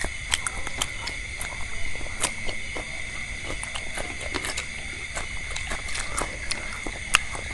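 Close-miked chewing and crunching of fried meatballs and vegetables: irregular wet clicks and smacks, a few sharper than the rest, over a steady high-pitched tone.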